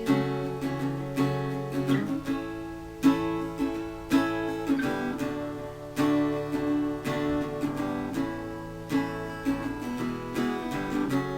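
Instrumental break of a song: acoustic guitar strumming chords, with no singing.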